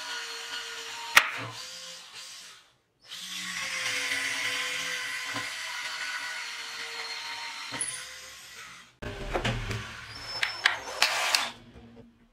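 Electric drill boring into a plywood board, its motor whining steadily with a short break near three seconds and one sharp click about a second in. Near the end comes a rougher, louder stretch with several sharp knocks before it stops.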